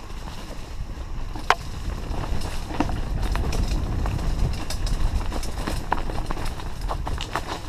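Trek Fuel EX 8 full-suspension mountain bike riding fast down a stony trail: tyres rolling over loose rock with a steady rumble of wind on the microphone, and frequent clicks and knocks from the bike, one sharper knock about a second and a half in.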